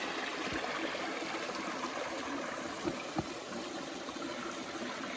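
Stream water flowing and trickling over rocks, a steady rushing hiss, with a few faint knocks about half a second and three seconds in.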